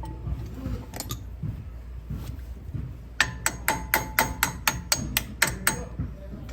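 Hammer tapping metal brake parts, most likely driving a brake pad retaining pin into the caliper: one knock about a second in, then a quick series of about eleven ringing metallic taps, roughly four a second, near the end.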